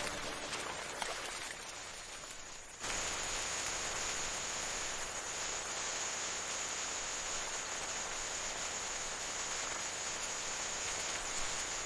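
A steady insect chorus: one thin, high, continuous tone over an even hiss, starting suddenly about three seconds in after a quieter hissing stretch.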